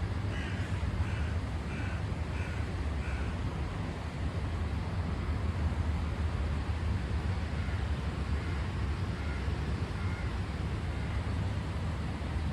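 Steady low outdoor rumble, like traffic, under a quick run of about six short, evenly spaced animal calls in the first three seconds, with a few fainter calls later on.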